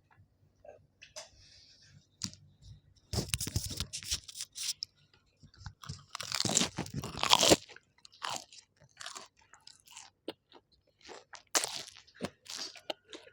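Close-up eating sounds: food being bitten, chewed and crunched in irregular bursts, loudest in two stretches, about three seconds in and again around six to seven seconds in, with scattered smaller mouth clicks between.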